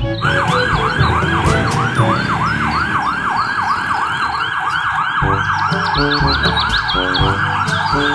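Ambulance siren in a fast yelp, its pitch sweeping up and down about three or four times a second without a break.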